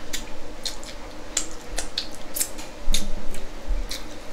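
Close-miked eating sounds: a dozen or so short, irregular wet smacks and clicks from chewing and handling boiled shrimp in butter sauce.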